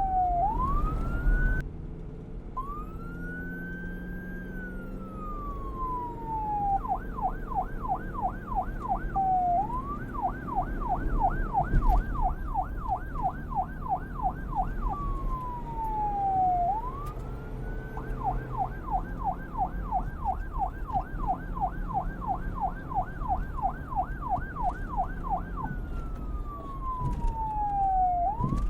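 Police car siren switching back and forth several times between a slow wail that rises and falls and a fast yelp of about four sweeps a second, over a low rumble.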